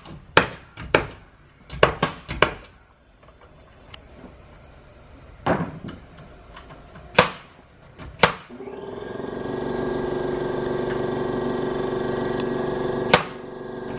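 Hammer blows on wood framing: a few strikes in the first second, a quick run of them about two seconds in, then single blows around five and a half, seven and eight seconds. After about eight and a half seconds a steady hum with several tones fades up and holds.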